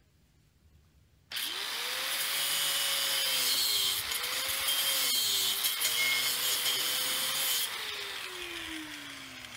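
Porter Cable 4.5-inch angle grinder with an abrasive cutoff wheel, switched on about a second in and cutting through 1/8-inch-wall square steel tubing with a loud, hissing grind. The motor's pitch rises as it spins up, dips twice as the wheel bites into the steel, and near the end the grinding stops and the motor winds down with a falling whine.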